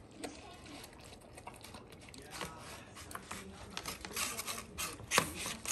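A dog eating from a disposable takeout food box on a tile floor: a run of small clicks, licks and rustles as its muzzle works the box, getting busier in the second half, with a sharp knock about five seconds in.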